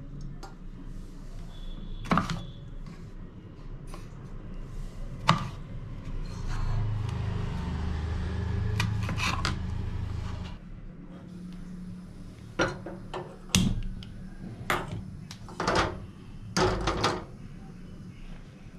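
A kitchen knife knocking on a wooden cutting board while vegetables are sliced: a few separate knocks at first, then a quicker run of knocks in the second half. A low rumble rises and falls in the middle for about four seconds.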